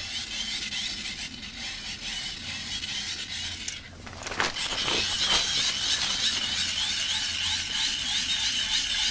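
Hand-cranked dynamo torch being wound fast, its gears making a quivering high whirr. The whirr turns louder and steadier from about halfway, just after a few handling knocks.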